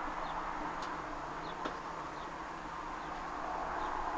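Steady outdoor background noise with small birds chirping briefly now and then, and a single light tap about one and a half seconds in.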